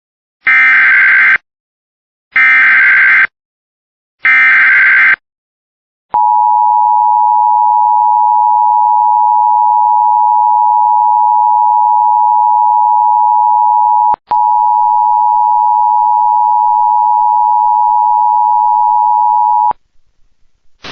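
Emergency Alert System broadcast tones: three short bursts of warbling SAME digital header data, then the steady two-tone EAS attention signal for about 13 seconds. The attention signal breaks for an instant about 14 seconds in, and fainter higher tones join it after the break. Together they announce the start of a new warning.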